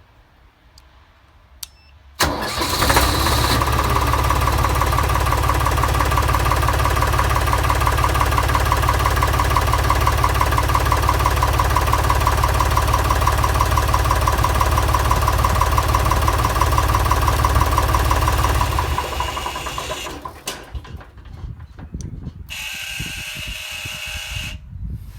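Deutz DX 3.50 tractor's three-cylinder air-cooled diesel is cranked by its starter and catches about two seconds in, then runs steadily. It is shut off after about 16 s and runs down. A fainter steady noise lasts about two seconds near the end.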